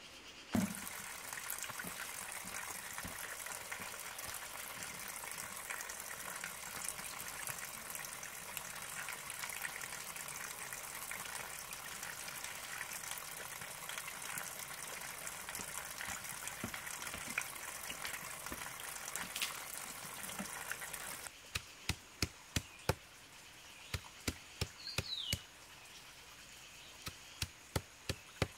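Stream water running steadily over rocks. Then a large knife chopping leafy greens against a flat stone: sharp knocks about two or three a second, in two runs with a short pause between.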